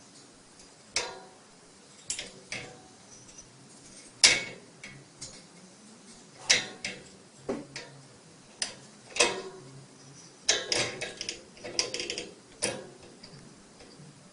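A series of sharp, irregularly spaced clicks and taps, some coming in quick clusters.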